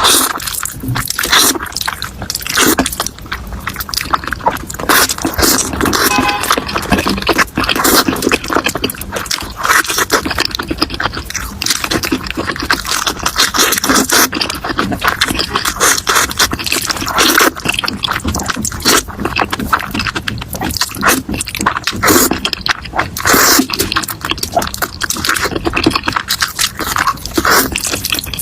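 Spicy noodles with fried egg being eaten: irregular chewing and slurping, with utensils scraping against the dish.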